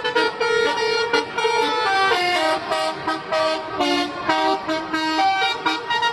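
Bus 'telolet' musical air horn playing a cheerful tune, its notes stepping quickly up and down several times a second.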